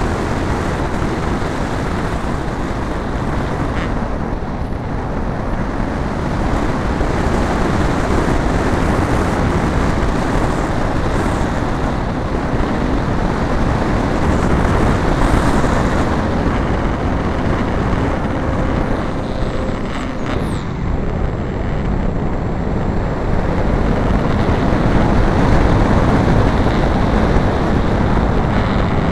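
Loud, steady rush of airflow and propeller noise from a radio-controlled aerobatic model airplane in flight, picked up by a camera mounted on its wing.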